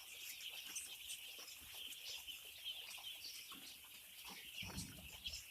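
A flock of five-day-old chicks peeping continuously: a faint, dense chorus of many overlapping high chirps.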